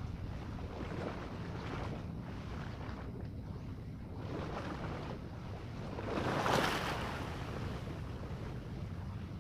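Wind buffeting the microphone over sea waves washing onto the beach, with the biggest swell of surf about six to seven seconds in.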